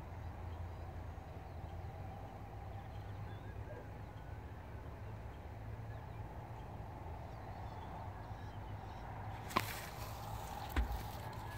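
Quiet outdoor background with a steady low hum, then two sharp knocks about a second apart near the end.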